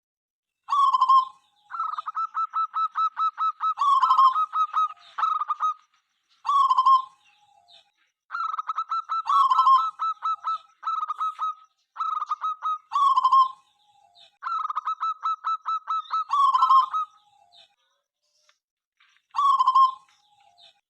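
Zebra dove cooing: about six song phrases, each a quick run of short staccato notes with longer coos among them, separated by short pauses.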